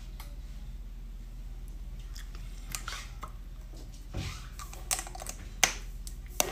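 A lip gloss tube and its applicator wand being handled: a few small, scattered clicks and taps, one sharper click about five and a half seconds in, over a steady low hum.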